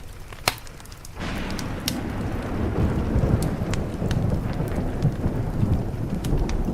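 Thunder rolls in about a second in, a long low rumble over steady rain, with a sharp pop just before it and scattered crackles from a wood fire throughout.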